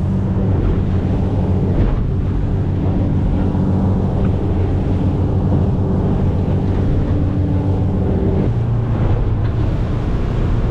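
Boat engine running steadily under way at sea, with wind buffeting the microphone; the engine note shifts about eight and a half seconds in.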